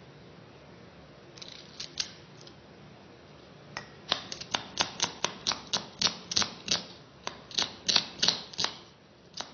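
Kitchen knife slicing a red onion on a wooden chopping block: a few cuts about a second and a half in, then a steady run of sharp chops, about three a second, from about four seconds in until near the end.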